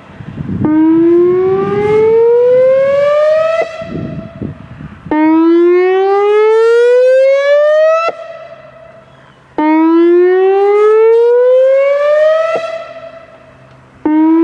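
Whelen Vortex electronic outdoor warning siren sounding its whoop signal during a test: a loud tone that sweeps upward over about three seconds and then cuts off, repeating about every four and a half seconds. Three full whoops sound, and a fourth starts near the end.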